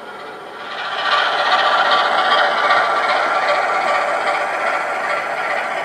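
Model train running along the layout's track: a rattle of wheels over the rails with a steady motor whine, growing louder about a second in and staying loud.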